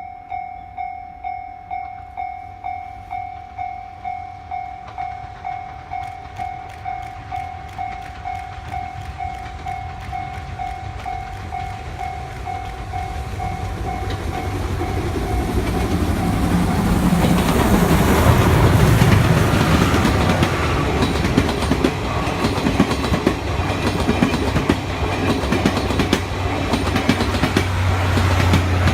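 Level-crossing warning bell ringing steadily, about four strikes every three seconds. About fifteen seconds in, the C57 180 steam locomotive and its train come through the crossing, growing loud, with wheels clacking over the rail joints.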